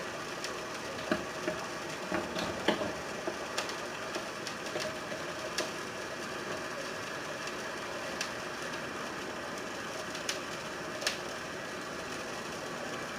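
A steady mechanical hum, with scattered light clicks and knocks of objects being handled.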